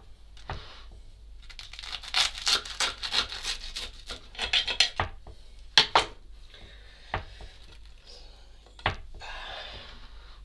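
Serrated knife sawing through the crusty bread top of a large burger in a run of scraping strokes, with several sharp knocks in between.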